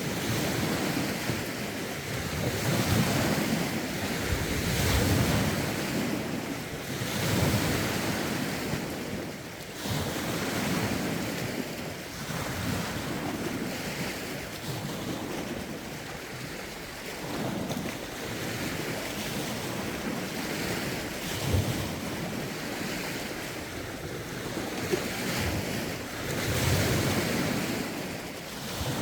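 Lake waves washing in, swelling and easing every couple of seconds, with rough wind buffeting the phone's microphone in low rumbles.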